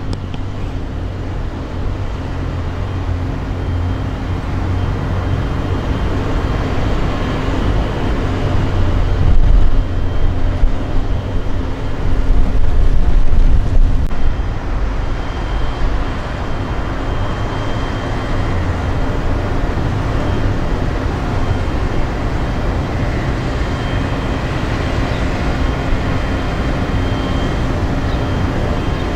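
Steady low drone of a stopped BNSF GE ET44C4 diesel locomotive idling, with a faint constant hum in it; the sound swells louder for a few seconds in the middle.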